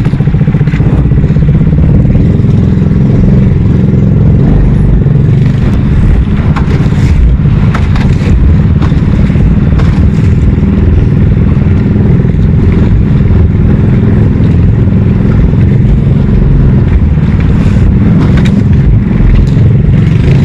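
Small fishing boat's engine running steadily and loudly at close range.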